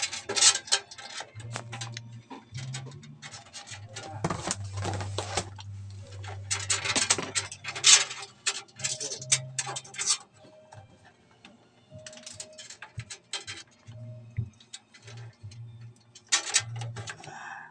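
Irregular clicks, taps and scrapes of hands handling cables, connectors and parts inside a PC case, with a low hum that comes and goes.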